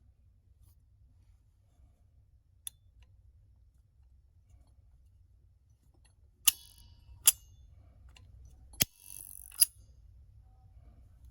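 Four sharp metallic clicks in the second half, with a brief rattle between the last two, over a faint low hum; a single lighter click comes earlier.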